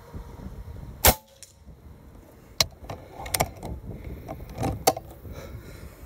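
A single shot from a Reximex Throne .25 PCP air rifle, a sharp crack about a second in, followed by several lighter mechanical clicks and knocks. Wind rumbles on the microphone throughout.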